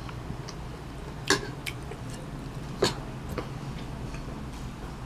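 Eating at a table: two sharp clicks about a second and a half apart, with a few fainter clicks, over a steady low hum.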